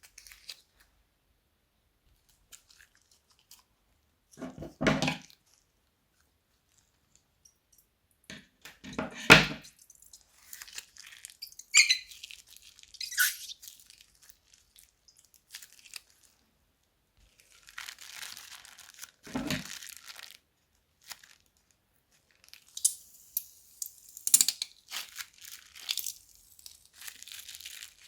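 Slime being worked with plastic bags: crinkling, crackling and tearing in separate bursts with short quiet gaps, with a few louder squishy pops among them.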